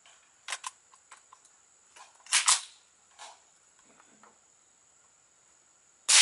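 Metallic clicks and clacks of a .22 rifle being handled and readied, the loudest a double clack about two and a half seconds in. Near the end comes a single shot from the suppressed .22 LR rifle: a sharp crack with a long fading tail, the bullet going supersonic at about 1164 feet per second.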